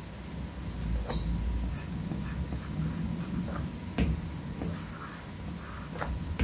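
Apple Pencil tip tapping and scratching across an iPad Pro's glass screen while sketch lines are drawn, with a few sharper taps spread through.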